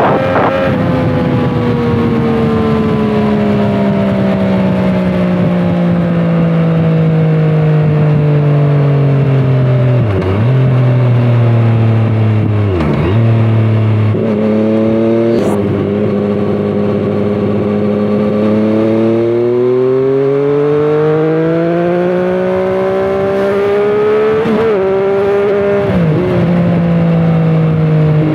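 2017 Triumph Street Triple 765 RS three-cylinder engine through a Scorpion Serket Taper carbon slip-on exhaust, heard from the rider's seat on the move. The revs fall for about ten seconds as the bike slows, dip briefly a few times, and hold steady. They then climb as it accelerates, with two upshifts near the end.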